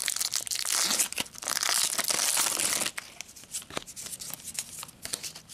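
Foil trading-card booster pack wrapper crinkling and tearing open by hand, a dense crackle for about three seconds. Then quieter light clicks and rustles as the stack of cards is handled.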